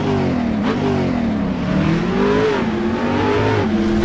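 Car engine revving, its pitch rising and falling several times as the throttle is worked, climbing highest about two and a half seconds in and dropping back near the end.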